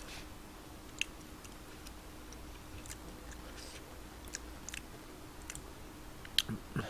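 Quiet eating: faint chewing with scattered small clicks every second or so, over a faint steady hum. Near the end a sharper click and a brief low sound.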